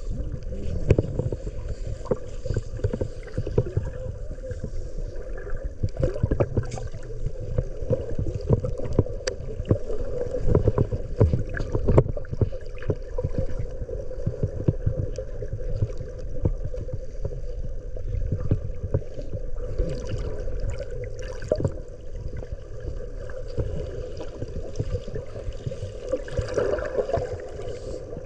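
Water sloshing and splashing around a small boat, with scattered knocks and a continuous low rumble.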